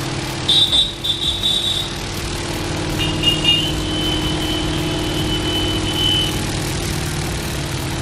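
Spin-tub motor of a Videocon semi-automatic twin-tub washing machine running with a steady hum as the tub spins clothes dry, with a thin high-pitched whine coming in twice.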